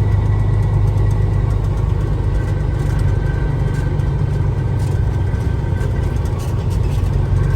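A vehicle engine running steadily with an even, deep drone.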